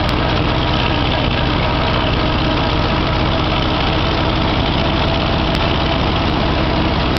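Farmall Cub tractor's small four-cylinder flathead engine running at a steady speed while the tractor drives along, heard from the driver's seat.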